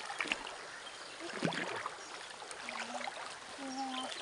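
Water sloshing and splashing around the legs of people wading in a shallow stream, with scattered small splashes and clicks.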